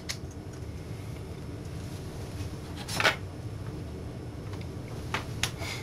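A few short clicks from a hand-held spring-loaded desoldering pump being handled, the loudest about halfway through and a quick run of small clicks near the end, over a steady low hum.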